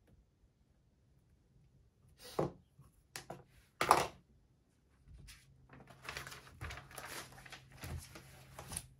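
A few sharp knocks of small objects being handled and set down on a wooden desk, the loudest about four seconds in. Then a few seconds of paper rustling as the pages of a spiral notebook are lifted and turned.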